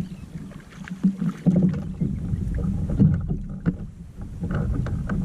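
Handling noises on a kayak: irregular knocks and rubbing against the hull over a steady low rumble, as a freshly caught fish and tackle are handled.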